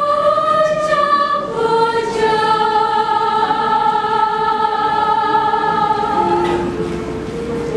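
School choir singing, holding long sustained chords that shift about a second and a half in and again near the end.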